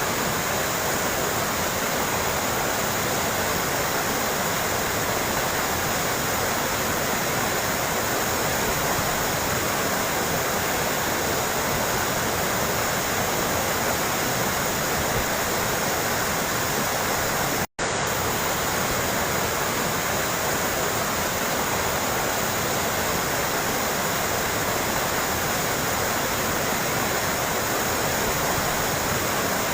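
Steady rush of running, trickling water, even and unbroken, cutting out for an instant about eighteen seconds in.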